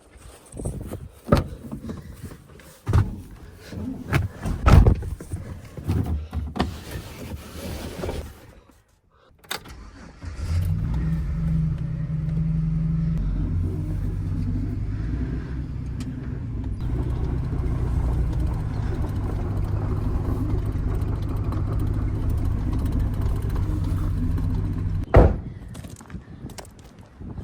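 Old farm tractor engine running steadily for about fifteen seconds, after a spell of scattered knocks and clicks; it stops with a sharp knock near the end.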